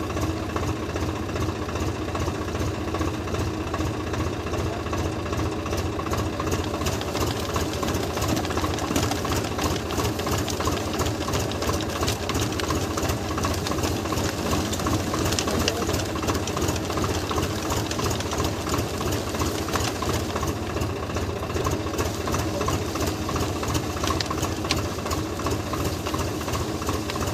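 Diesel engine of a Swaraj 744 XT tractor running steadily with a fast, even diesel clatter while its hydraulic lift draws the borewell pipe up.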